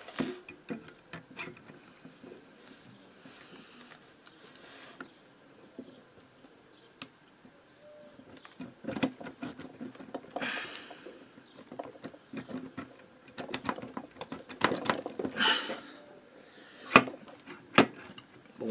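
Handling noises as the finned cylinder of a Motobécane AV89 moped engine is slid down over the piston and its hand-compressed rings onto the crankcase studs: scattered light metallic clicks and taps with brief rustling, and a sharper click near the end. The rings go in with little resistance, which the mechanic takes as a sign that they are worn.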